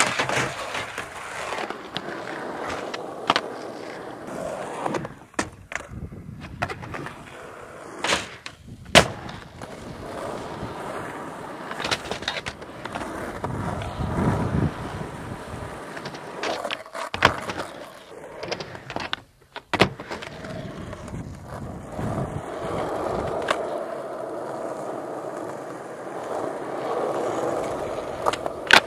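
Skateboards rolling over tarmac with a steady wheel rumble, broken by many sharp clacks and knocks of boards hitting the ground, ramp and edges as tricks are popped and landed.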